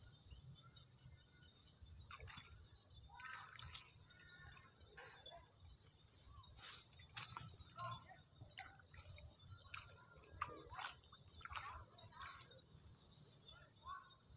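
Insects trilling steadily at a high pitch, with scattered faint rustles and clicks of someone handling things in the grass and water at the edge of a pond.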